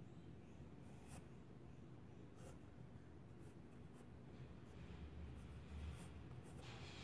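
Faint scratching of a pencil drawing on a sketchbook page, with a few short, sharper strokes standing out.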